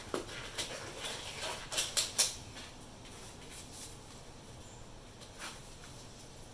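A few light clicks and taps of things being handled, bunched in the first two seconds with one more about five seconds in, over faint room tone.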